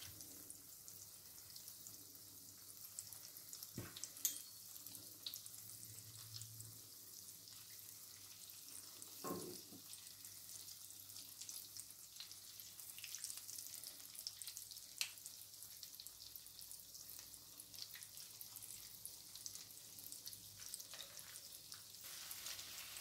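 Cheese-dough sticks shallow-frying in hot oil in a non-stick pan: a faint, steady sizzle with fine crackles. A few light taps come from a fork moving the sticks in the pan.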